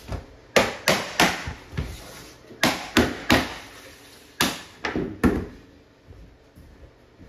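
Claw hammer striking a tapping block against the edge of a vinyl flooring plank, knocking it tight into the row. About ten sharp knocks come mostly in quick runs of three and stop about five seconds in.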